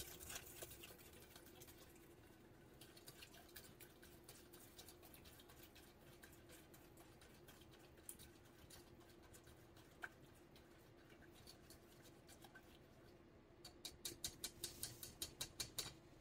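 Stirring utensil clicking and scraping lightly against a small saucepan as a warm gelatin mixture is stirred, mostly very faint, with a quick run of light ticks near the end. A faint steady hum lies underneath.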